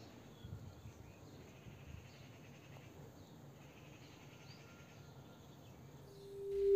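Faint, steady background noise with a few soft chirp-like sounds. Near the end a single held tone swells quickly in loudness, leading into music.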